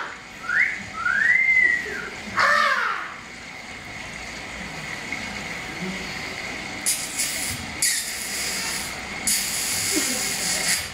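Wordless stage vocalising: a rising-and-falling vocal cry, then a short whistled glide and a longer arching whistle, then another cry. Later come two stretches of hissing.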